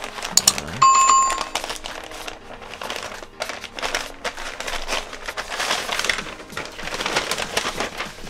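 Wrapping on a package crinkling and rustling as it is torn open and handled, in irregular bursts. A brief steady high tone sounds about a second in.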